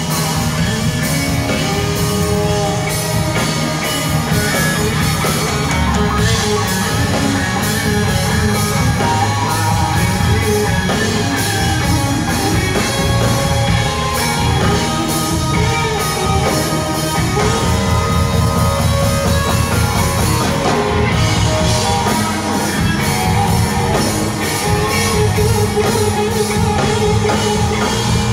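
A rock band playing live through a large arena PA, heard from within the audience: electric guitars, heavy bass and a drum kit at full volume, steady throughout.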